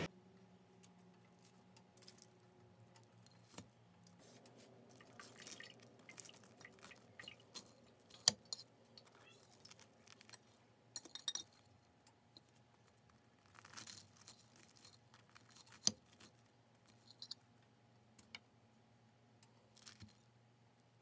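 Knife and fork clinking and scraping on a ceramic plate while cutting up a crusty baked bread, with a faint steady hum behind. The clicks are short and scattered, the sharpest about eight seconds in and again near sixteen seconds.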